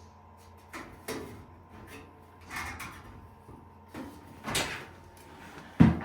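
Irregular knocks, bumps and scrapes of things being moved and handled around a dryer, with one sharp, loud knock near the end.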